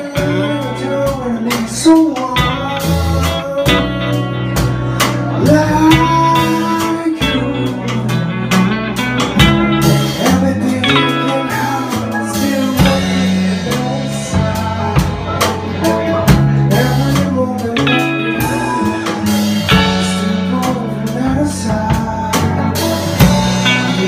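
A live rock band playing a song: acoustic guitar, electric guitar, bass guitar and drum kit, with a man singing lead.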